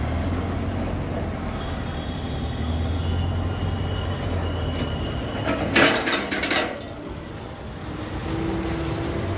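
Tow truck's engine running steadily as it pulls an empty steel trailer chassis, with a short burst of metallic clanking and rattling about six seconds in.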